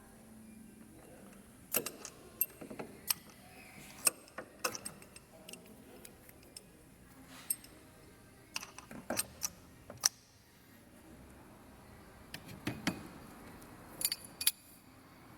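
Irregular metallic clicks and clinks of hand tools on the engine as a camshaft bolt is turned through its angle-torque stage, some in quick clusters.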